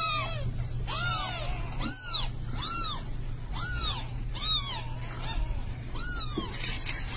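Young kittens mewing: short, high-pitched mews, each rising and then falling in pitch, repeated about once a second, over a steady low hum.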